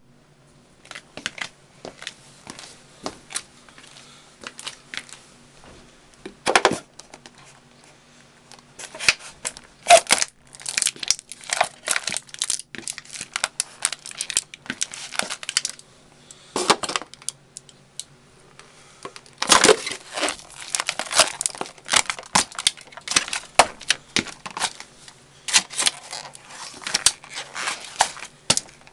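Danner Mountain Light hiking boots stomping on and crushing a paper drinking cup and a plastic drinking cup on a tile floor. The cups give repeated clusters of crunching and crackling with short pauses between, densest in the middle and the second half.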